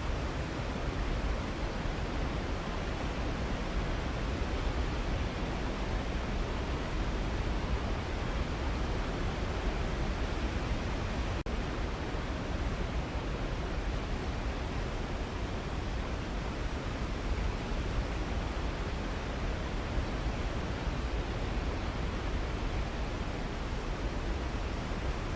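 Waterfall: a steady, even rush of falling water, heaviest in the low end. There is a brief click and dropout about eleven seconds in.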